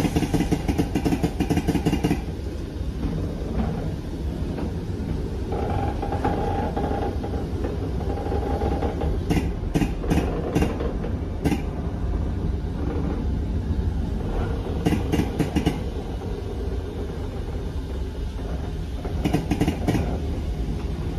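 Train carriage running along the track, heard from inside: a steady low rumble with several short bursts of rapid wheel clicks over rail joints.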